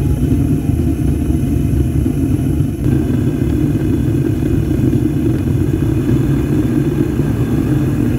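Large flame burning out of the lid hole of a homemade electric foundry: a loud, steady low rumble with a faint steady hum under it.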